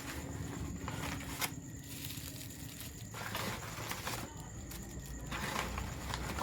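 Rustling and light clicking as packaged firecrackers are handled, with one sharper click about a second and a half in.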